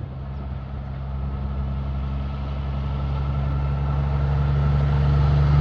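Heavy truck's diesel engine approaching, a steady low engine drone that grows louder throughout.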